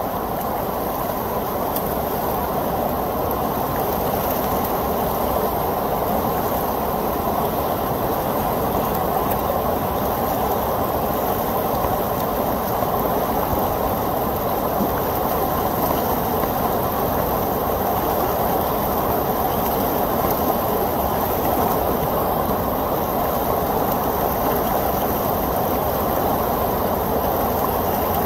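Steady rush of churning white water at the foot of a fish ladder.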